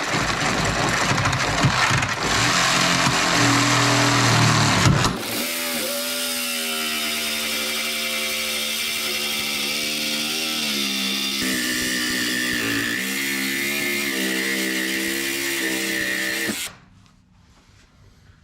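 Reciprocating saw cutting through a steel frame rail. It starts rough and rattly, then settles into a steady whine whose pitch dips and wavers as the blade loads, and it cuts off near the end.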